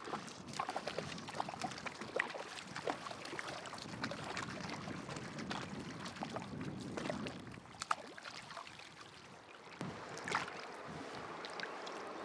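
Water splashing as a hooked brown trout thrashes at the surface and is scooped into a landing net, with many irregular sharp splashes over the steady rush of the river current.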